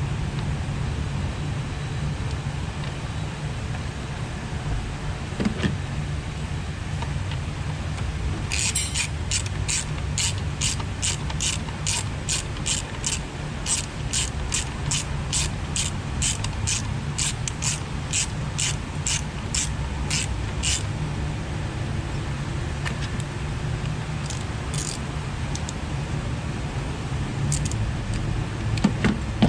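Ratchet wrench clicking in a regular run, about two clicks a second, for some twelve seconds, with a few more clicks later, over a steady low hum.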